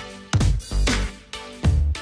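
Background music with a rhythmic beat and deep bass drum hits that slide down in pitch.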